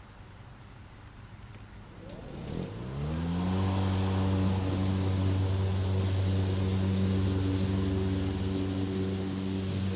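Lawn mower engine starting about two seconds in, rising quickly in pitch as it speeds up, then running at a steady speed.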